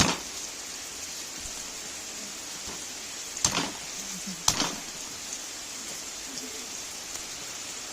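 Steady rain falling, an even hiss throughout, with three sharp knocks: one at the start, then two about a second apart near the middle.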